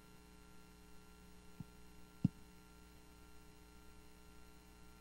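Steady electrical mains hum in the sound system, with two short low thumps about one and a half and two and a quarter seconds in, the second one louder.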